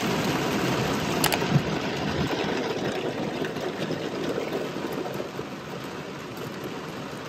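Heavy rain pouring onto a car's roof and windshield, heard from inside the car as a dense, steady hiss that eases slightly toward the end, with a single sharp tap about a second in.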